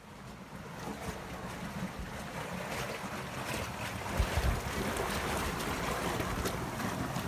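Water gushing out of a large discharge pipe into a concrete basin, a steady rushing that grows louder over the first few seconds, with some wind buffeting the microphone.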